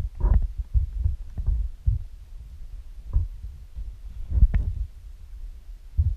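Irregular low thumps and knocks, a few of them sharper, scattered unevenly over a few seconds.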